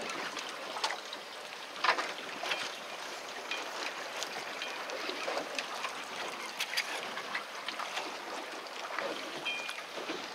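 Water lapping and sloshing against the hull of a fishing boat drifting with its engine off, a steady wash with scattered small slaps and clicks. A short high tone sounds near the end.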